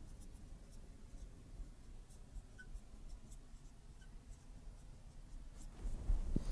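Marker writing on a glass lightboard: faint scratchy strokes as letters and brackets are written. A soft low bump comes near the end.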